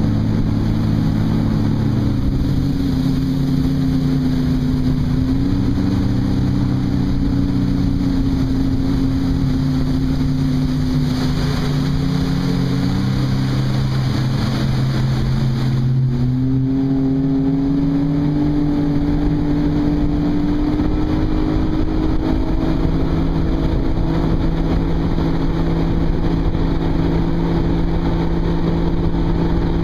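Sea-Doo GTX 215 personal watercraft's supercharged Rotax three-cylinder engine running at cruising speed under a hiss of water. Its pitch eases lower through the first half, then climbs from about sixteen seconds in and holds steady at a higher speed.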